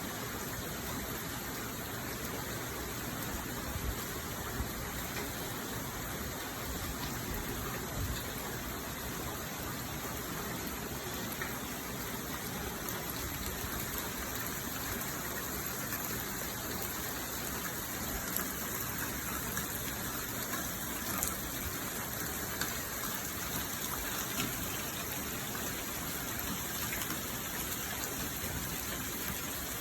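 Heavy rain falling steadily, with water gushing and running, and a few brief louder splashes.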